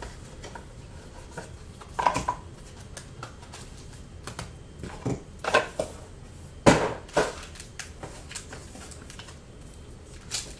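Cardboard trading-card boxes and packs being handled on a desk: scattered knocks, taps and rustles, the loudest knock about two-thirds of the way through.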